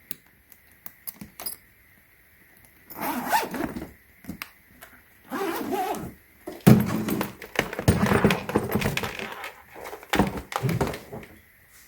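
Zipper of a hardshell suitcase being drawn open in several rasping pulls, after a few light clicks of the case being handled.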